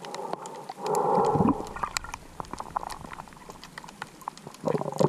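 Underwater ambience: a muffled rushing noise for about half a second about a second in, then scattered sharp clicks and crackles.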